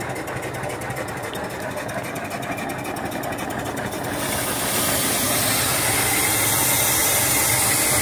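Steam hissing steadily from a live steam boiler's blower ring. It comes on loud about halfway through as a brass valve on the boiler is opened, jetting steam up the stack to draw the wood fire harder. Before that there is a quieter steady noise with fine rapid ticking.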